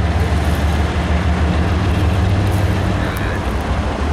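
Diesel locomotive engine running with a steady low drone as the locomotive rolls slowly along the track.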